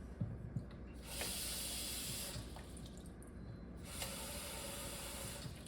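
Water from a tap running into a countertop reverse osmosis filter's water tank in two short runs, topping it up to the max line, with a few light knocks before the first.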